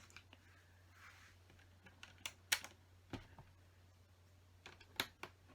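LEGO plastic pieces clicking and tapping as they are handled and pressed into place: a few sharp separate clicks, the loudest about two and a half seconds in, and another small cluster near the end.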